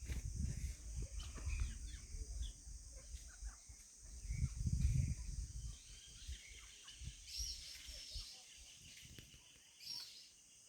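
Birds chirping in short scattered calls over a steady high insect drone, with a low rumble on the microphone that is loudest about five seconds in.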